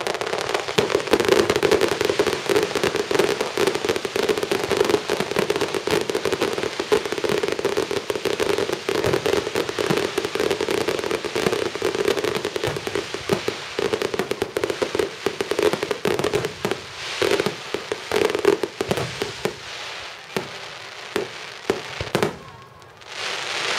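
Fireworks finale: aerial shells bursting in a dense, continuous barrage of bangs and crackling. About two-thirds of the way through it thins out to separate booms with short gaps between them.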